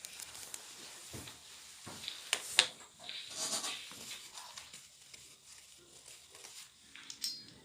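A few scattered short knocks and scuffs, with a brief muffled voice about three and a half seconds in.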